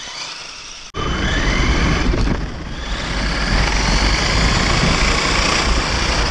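A vehicle on the move: a motor whine rising in pitch over heavy low rumble and wind-like noise, cutting in suddenly about a second in.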